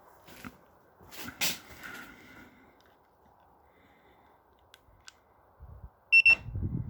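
Quiet rustling and a few light clicks, with a brief breathy noise early on, then near the end a short high electronic beep, heard twice, from the newly installed car alarm's sound unit as it is triggered.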